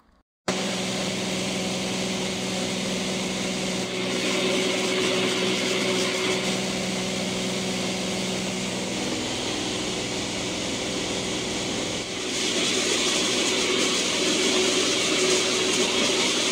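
Steady drone of a small floatplane's engine and propeller heard from inside the cockpit in flight, with rushing air noise. It starts suddenly about half a second in, and the hiss grows louder about twelve seconds in.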